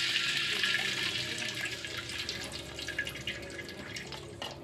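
Tamarind water poured into a hot wok over sautéed spice paste, sizzling, the sizzle gradually dying down into small crackles and pops.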